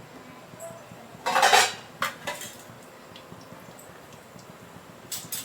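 A metal spoon scraping and clinking against a kadai while stirring cashews roasting in ghee: one scrape about a second in, a couple of sharp clinks, then more clinks near the end.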